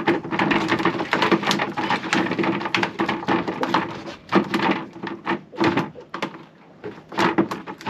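Freshly caught mackerel flapping and drumming against the hard surfaces of a small boat: a rapid, dense run of knocks and taps that thins out to scattered single knocks about halfway through.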